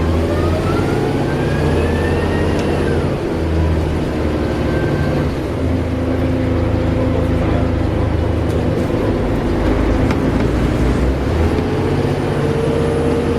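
Volvo Olympian double-decker bus heard from on board, its engine pulling under load with a whine rising in pitch over the first three seconds. Loudness dips briefly about three seconds in and again a couple of seconds later, as at gear changes, and the bus then runs on steadily.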